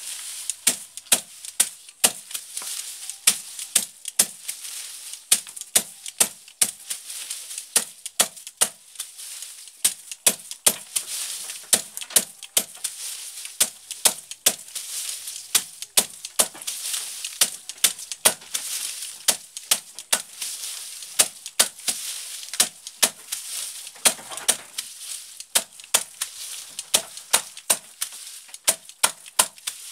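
Machete chopping bundles of fresh grass against a wooden block on the floor: a steady run of sharp chops, about two to three a second.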